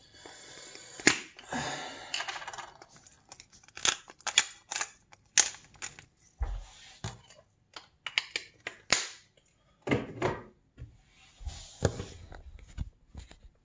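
Pepper being added to the sandwiches: a run of irregular clicks, crunches and knocks, with a few short rasping stretches, about a second long, near the start, about two-thirds through and near the end.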